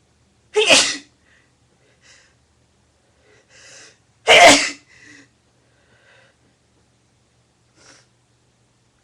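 A woman sneezing loudly twice, about a second in and again about four and a half seconds in, with fainter breathy sounds between and after.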